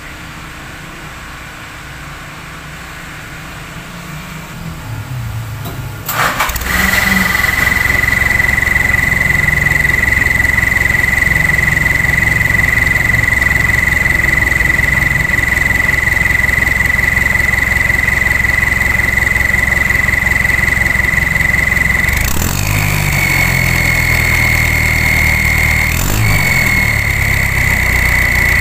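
Diesel engine of an owner-type jeep starts about six seconds in and settles into an idle. From the start a steady high whistle comes from a turbo whistle fitted in the exhaust pipe, and two short throttle blips near the end briefly bend its pitch.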